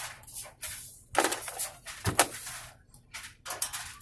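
A plastic drill bit case and its bits being handled: irregular rattling and rustling with sharp clicks, the loudest a little past one second and two seconds in.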